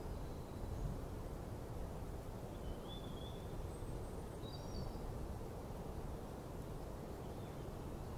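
Steady low rumble of outdoor background noise, with a few faint, short bird chirps near the middle.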